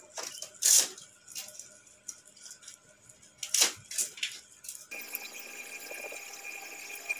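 Hand-held U-shaped gouge, made from an old knife blade, scraping through wood in a few short cutting strokes, the loudest about a second in and again about three and a half seconds in. About five seconds in, this gives way abruptly to a steady hiss with a thin high tone.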